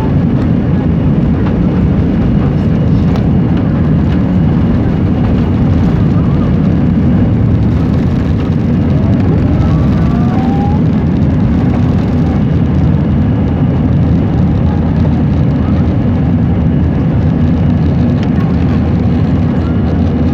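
Airbus A320 at takeoff power, heard inside the cabin: a loud, steady rumble of engine and airflow noise as the jet rolls down the runway, lifts off and climbs.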